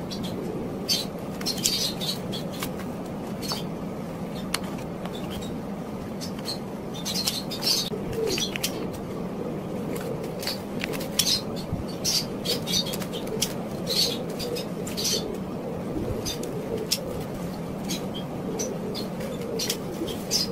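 Paper prints and cards being handled and shuffled on a desk, with scattered crisp rustles, flicks and snips of scissors cutting paper over a steady low background hum.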